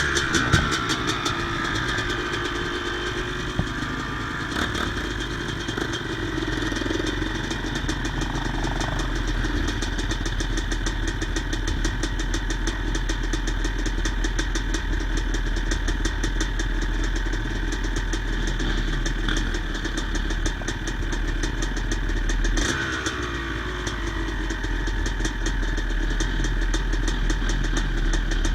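Yamaha YZ250 single-cylinder two-stroke dirt-bike engine running at a steady idle, with its revs falling back after a blip near the start and again about 22 seconds in.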